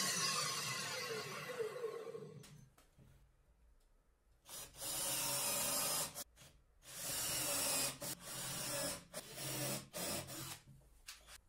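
Circular saw under a homemade table-saw top spinning down, its pitch falling as it fades out over the first two seconds. Then a cordless drill drives screws into pine battens in several runs of a second or so, with short pauses between.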